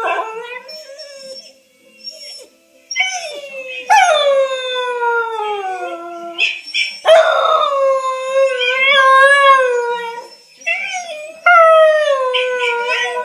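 Whippet howling in a series of long, drawn-out howls, most sliding slowly down in pitch, with a short lull about two seconds in. She is howling in answer to a recording of her own howl played on a laptop, whose sound may be mixed in with hers.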